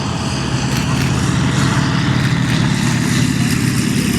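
A Yakovlev aerobatic trainer's nine-cylinder Vedeneyev M-14P radial engine and propeller running steadily at low power, getting slightly louder about a second in.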